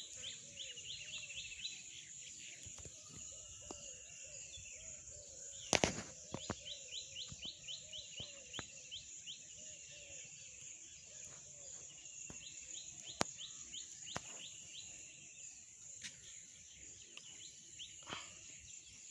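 Countryside ambience: birds singing in repeated quick chirping phrases over a steady high insect drone. A few sharp clicks break in, with one louder knock about six seconds in.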